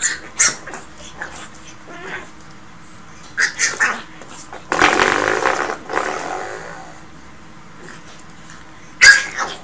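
Spring doorstop pawed and bitten by a pug puppy, snapping with sharp clicks. About five seconds in comes one longer, louder twang that fades out, then more snaps near the end.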